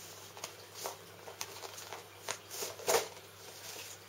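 Cardboard packaging being handled: the printed outer sleeve slid off the box, giving a string of light scrapes and taps, the loudest about three seconds in.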